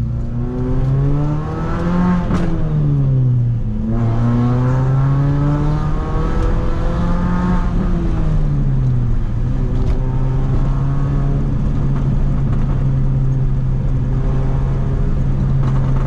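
Mini Cooper S R53 engine revved twice, its pitch climbing and dropping back each time, then settling to a steady idle after about nine seconds.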